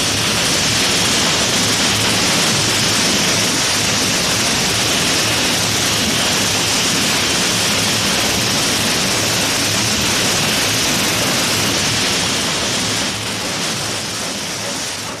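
High-pressure steam blowing from a steam locomotive's fractured brake steam pipe: a loud, steady hiss. It eases slightly near the end.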